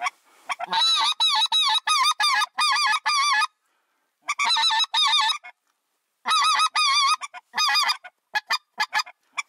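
Mouth-blown goose call imitating bean geese, honking in quick runs of about three calls a second, with short pauses between runs and a string of short, quick notes near the end: calling to an approaching flock.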